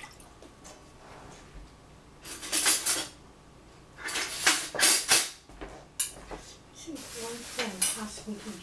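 Cutlery and kitchen utensils clinking and clattering in several short bursts.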